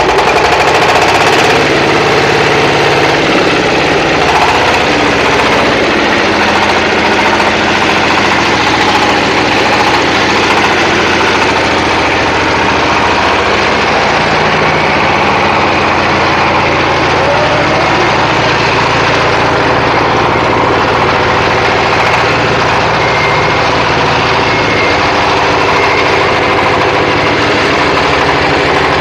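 Red single-cylinder diesel engine running steadily with an even beat, driving a clay brick-making machine through its belt and chain drive.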